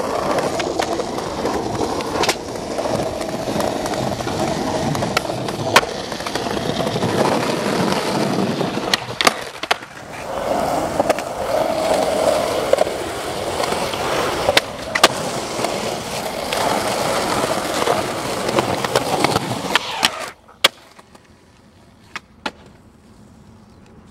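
Skateboard wheels rolling over concrete, with sharp clacks of the board and trucks scattered through the roll. About twenty seconds in, the rolling cuts off suddenly as the skater ollies into the air, leaving only quiet background.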